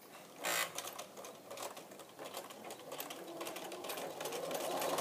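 Bernina computerised sewing machine stitching bias binding onto a fabric edge: a fast run of needle strokes that starts about half a second in and grows louder toward the end.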